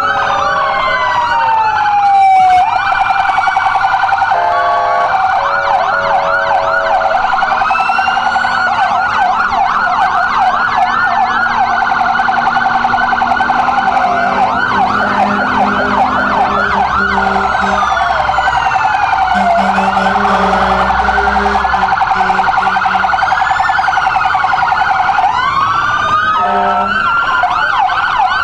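Several fire truck and emergency vehicle sirens wail and yelp at once, their rising and falling tones overlapping. Short blasts of a steady horn cut in a few seconds in and again near the end.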